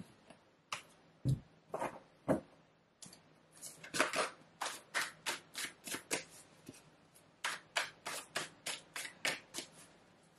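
A deck of tarot cards being shuffled by hand: a few scattered taps at first, then from about three and a half seconds in a steady run of short card slaps, about three a second.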